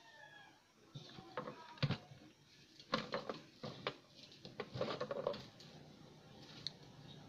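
Faint handling noise from an analog multimeter: a scatter of clicks, knocks and brief rustles over a few seconds as the meter is moved, its range dial set and the test probes handled, then only a low background.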